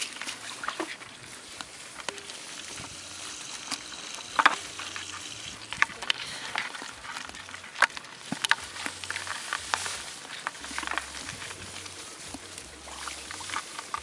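Live eels, fish and snails shifting in a plastic bucket: scattered wet clicks and crackles, with a sharper click about four and a half seconds in and another near eight seconds.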